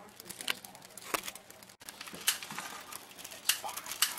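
Cake sparklers fizzing with irregular sharp crackles.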